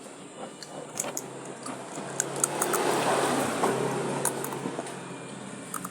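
A motor vehicle passing, its engine noise swelling to a peak about three seconds in and then fading, with a few light clicks.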